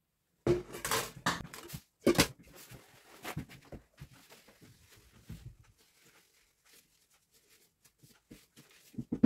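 Paper towels rustling and crumpling as they are pulled off a roll and wiped over a glass jar, with light knocks of kitchenware being moved. The sound is loudest in the first two seconds, then fainter and sparse.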